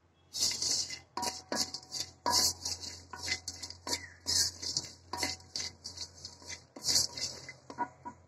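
Wooden spatula stirring and scraping cashews around a dark wok-shaped pan: a run of irregular scraping strokes with the nuts rattling against the metal, over a low steady hum.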